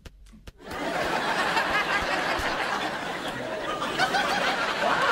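Studio audience laughing, starting suddenly about a second in and carrying on through to the end.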